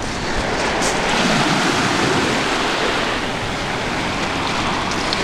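Surf washing onto the beach, a steady rush of breaking waves that swells slightly about a second in.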